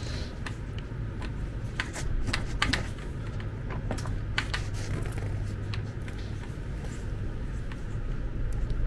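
Irregular light clicks and knocks as an electric wheelchair's drive wheel is wiggled and worked along its motor-gearbox shaft by hand, over a low steady hum.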